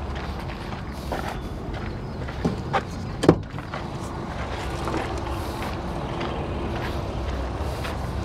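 Hino 338 truck's driver door being opened: a couple of light clicks from the handle, then a sharp latch clunk about three seconds in, under a steady low rumble.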